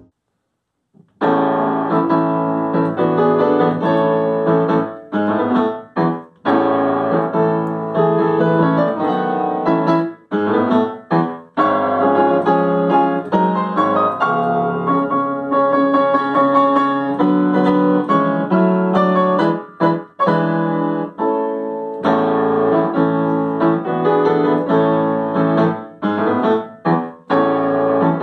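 Yamaha upright piano played solo, starting about a second in: a busy passage of many quick notes, broken by brief pauses between phrases.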